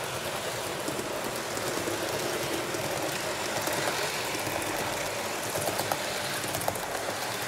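Piko HO-scale Mat '56 model train running along the track: a steady whirring rumble of motor and wheels on rail, with a few light clicks about five to seven seconds in.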